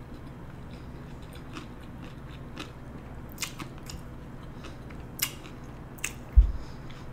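Chewing a mouthful of veggie burger, with scattered moist mouth clicks. A single dull low thump about six and a half seconds in.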